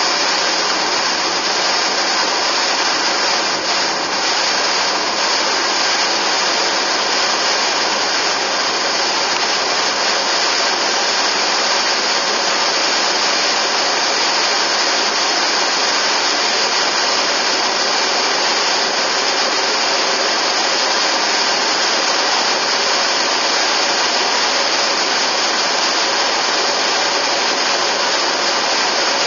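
Steady road noise of a car driving along at speed: tyres on asphalt and wind, an even hiss that hardly changes throughout.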